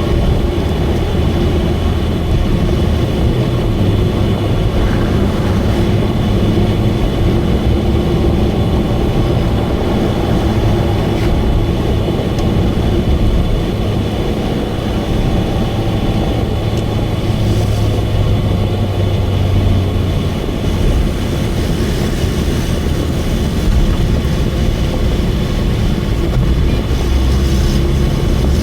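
Subaru Vivio KK3's small inline-four engine and leaking exhaust, heard from inside the car at a steady cruise: a loud, steady drone over tyre and road rumble. The drone is the sign of an exhaust leak.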